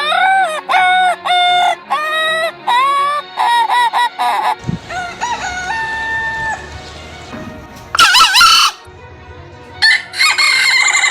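Chickens calling: a quick run of short, repeated clucking calls, then a rooster crowing about five seconds in. A loud, short call comes about eight seconds in, and another crow starts near the end.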